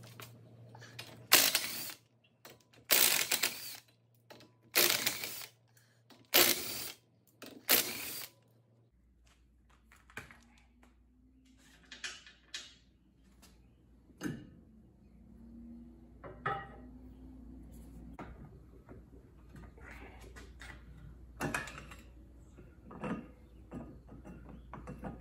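Cordless impact tool firing in five short bursts about a second and a half apart, loosening nuts on a car's rear hub, followed by quieter clinks and knocks of parts and tools being handled.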